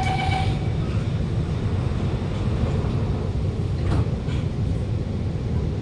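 Door-closing warning beeps of an Alstom Movia R151 metro train, a pulsing high electronic tone that stops about half a second in, over the steady low rumble inside the carriage as the doors shut. A single sharp knock comes about four seconds in.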